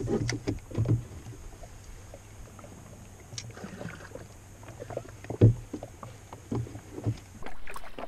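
Irregular knocks and clunks in a rowboat, with one louder thump about five and a half seconds in.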